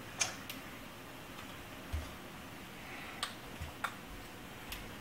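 Sparse light clicks and a couple of soft knocks as packed brown sugar is tipped and shaken out of a glass measuring cup into a stainless steel saucepan.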